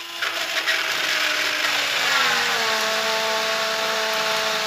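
Hand-held immersion blender running in a stainless steel bowl, whipping egg and olive oil into mayonnaise as it thickens. Its motor whine drops in pitch about two seconds in, then holds steady.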